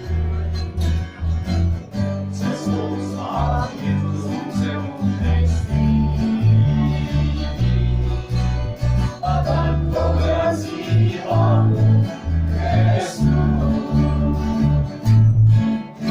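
Acoustic country band playing an instrumental passage: acoustic guitar strumming over a steady, stepping bass line.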